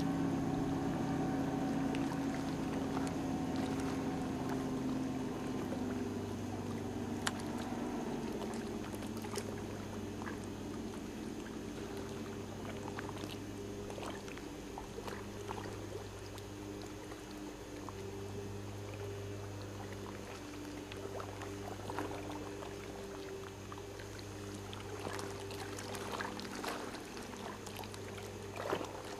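A boat's motor idles with a steady low hum, easing down a little in the first few seconds. Light water splashes and lapping come over it, with more scattered splashes near the end.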